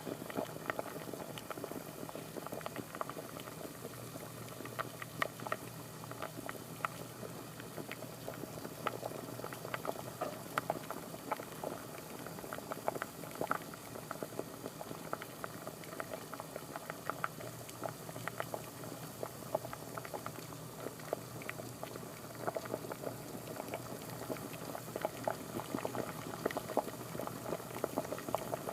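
Water at a rolling boil: a steady, dense bubbling with many small irregular pops.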